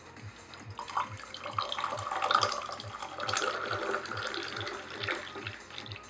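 Liquid being poured with a handmade unglazed clay teapot, starting about a second in and stopping about five seconds in. Background music with a steady beat runs underneath.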